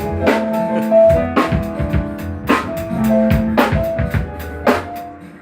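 Music during a band's sound check: drum kit hits, kick and snare, under held instrumental notes, trailing off near the end.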